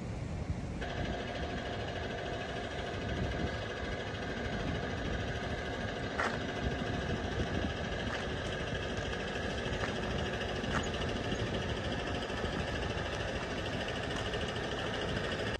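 A machine running steadily, with several steady humming tones that come in about a second in and a few light clicks over it.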